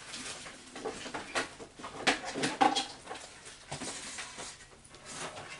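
Irregular light clicks and rustles of handling as a power cord is picked out and handled.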